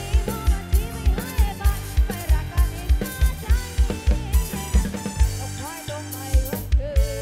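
Live band dance music: a driving kick drum about four beats a second with snare, electric bass and a wavering melody line on top. The kick drops out briefly about six seconds in, then comes back.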